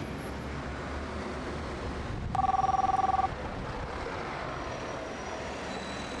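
Telephone ringing: an electronic two-tone trill about a second long, a little over two seconds in, over steady low background noise.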